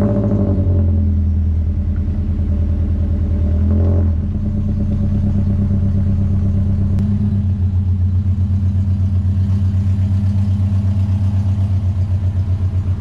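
Scion FR-S's 2.0-litre flat-four boxer engine, fitted with unequal-length headers, running just after starting. About four seconds in it drops to a slightly quieter idle with an even pulsing as the car pulls slowly out of the garage.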